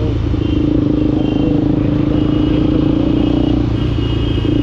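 Motorcycle engine running at a steady speed while riding, with a constant hum and road noise.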